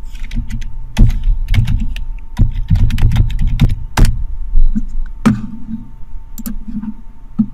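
Typing on a computer keyboard: irregular, quick keystroke clicks over a steady low hum.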